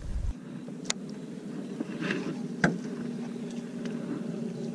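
A steady low hum, like a small motor running, with two sharp clicks about a second and two and a half seconds in.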